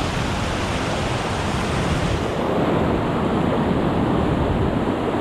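Sea surf washing against the shore in a steady rush of noise, its hiss dulling slightly about two seconds in.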